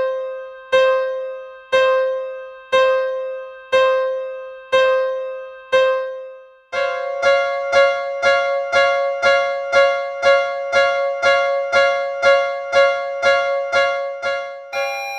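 Railroad crossing warning bell in the Japanese 'kan-kan' style, one bell-like tone repeating about once a second, then about twice as fast from about seven seconds in.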